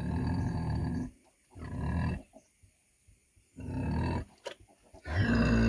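Adult sow grunting in long, low calls, four of them with short pauses between, the last the loudest.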